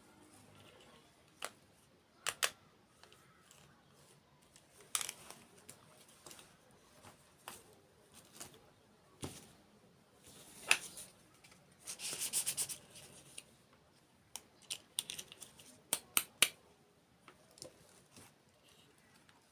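Close-miked mukbang eating sounds: sharp, irregular crunches and clicks of dessert being bitten and chewed, with a quick run of crackling crunches about twelve seconds in and a few loud snaps around sixteen seconds.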